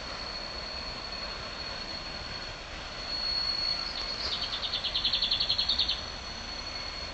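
Railway track-work train running, with a steady high-pitched squeal over a general rumble-free hiss. About four seconds in, a rapid rattling of roughly nine clicks a second lasts for almost two seconds.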